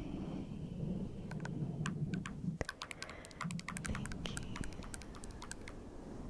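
A quick, irregular run of light, sharp tapping clicks close to the microphone, over a low rumble of close handling noise.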